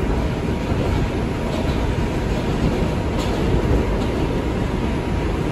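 An R142 subway car running between stations, heard from inside: a steady rumble of wheels on rail, with a faint steady tone and a light click about three seconds in.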